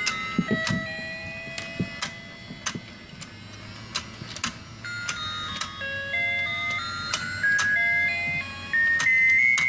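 Battery-powered toy fishing game playing its simple electronic tune, a melody of single beeping notes, with frequent sharp clicks and taps throughout.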